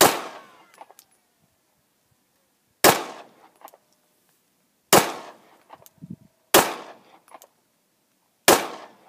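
Five 9mm shots from a Glock 17 pistol fired slow and deliberate, about two seconds apart, each sharp crack trailing off into a short echo.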